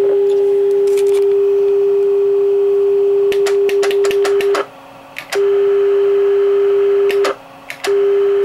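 A steady low-pitched test tone from a signal generator, received through a GE Rangr mobile radio's speaker. The tone cuts out twice briefly, about four and a half and seven seconds in, with sharp clicks from the generator's keys as its output level is stepped down.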